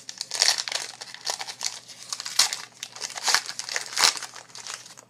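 A trading card pack's wrapper crinkling as it is torn open and pulled apart by hand: a run of irregular crackles and rustles that stops just before the end.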